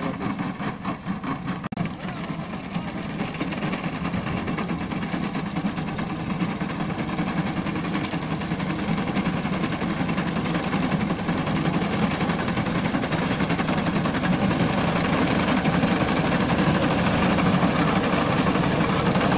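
Massey Ferguson 260 tractor's three-cylinder diesel engine running steadily under load while driving a front-mounted wheat reaper, growing louder as it approaches.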